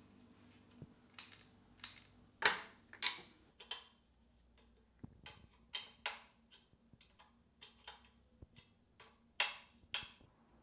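Hex key working the handlebar stem faceplate bolts: a series of irregular, sharp metallic clicks and ticks as the key seats in the bolt heads and the bolts are turned and snugged down, with the loudest clicks about two and a half seconds in and near the end.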